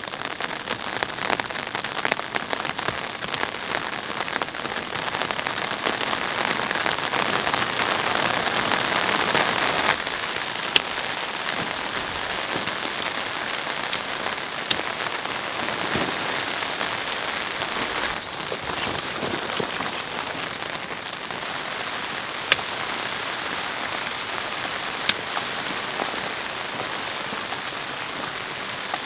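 Steady rain falling, a dense even patter. It is somewhat louder for the first ten seconds, then drops back abruptly. A few isolated sharp ticks stand out later on.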